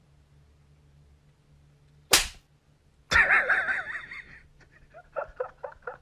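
A single sharp smack, then about a second later a loud wavering cry lasting over a second. It is followed near the end by a quick run of short voiced pulses.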